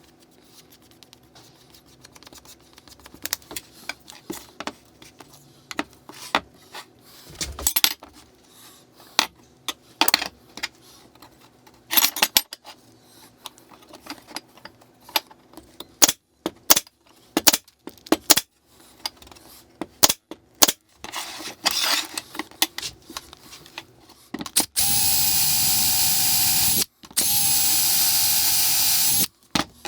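Scattered light clicks and knocks from nailing and handling small plywood parts, then near the end an electric drill runs at a steady pitch twice, about two seconds each with a short break, drilling through 4 mm mild steel flat bar.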